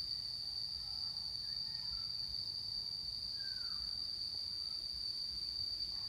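An insect trilling on one steady, high-pitched tone, over a low rumble. A faint falling whistle comes about three and a half seconds in.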